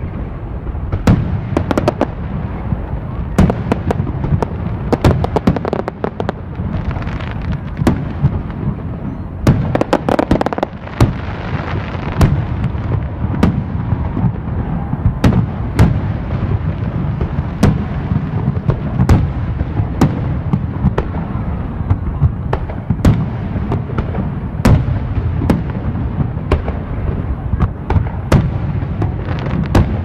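Fireworks going off: a steady run of sharp bangs, one or two a second, over a continuous low rumble of further explosions. A denser crackling stretch comes about a third of the way in.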